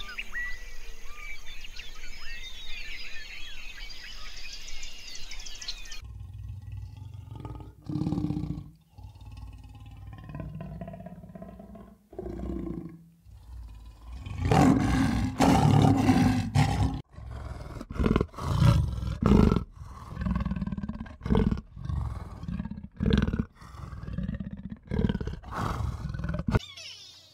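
High-pitched chirping for about six seconds, then a big cat roaring and growling: deep roars in long bursts, the loudest midway, followed by shorter grunts in quick succession that cut off just before the end.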